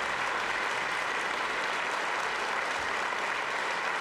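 A large audience applauding, many hands clapping at a steady level.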